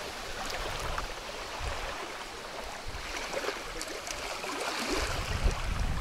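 Small waves lapping at a shallow, chalky lake shore, a steady wash of water. Low rumbles on the microphone come and go, the strongest near the end.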